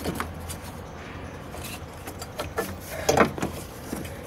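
Hands working on engine-bay parts around the brake-booster vacuum pump: light rubbing and scattered small knocks, with a short cluster of louder knocks about three seconds in, over a low steady hum.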